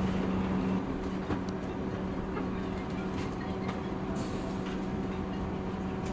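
Interior of an old MÁV InterCity passenger coach in motion: steady rolling rumble with a strong steady hum that drops in level about a second in, and scattered short clicks from the wheels on the track.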